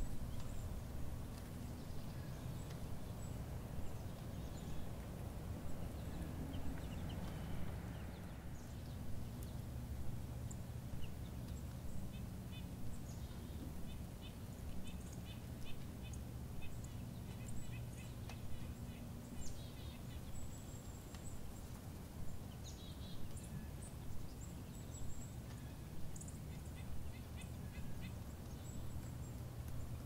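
White-tailed deer feeding at close range: soft, rhythmic crunching and chewing about once a second, over a steady low hum.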